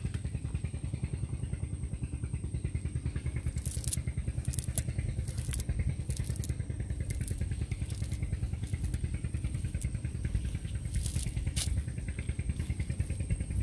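An engine running steadily with an even, rapid low throb. A thin steady high whine sits over it, and a few scattered crackles come in the middle and near the end.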